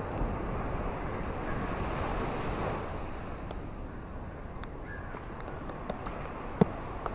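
Steady rain falling, with scattered sharp drops striking close by; the loudest drop lands about six and a half seconds in.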